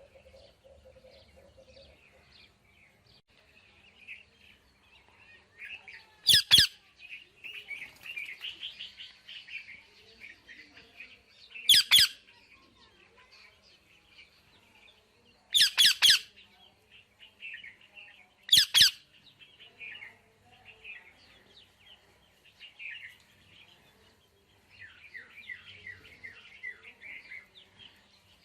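Parrot chirping and chattering softly, broken by four loud, sharp squawks spread through the stretch.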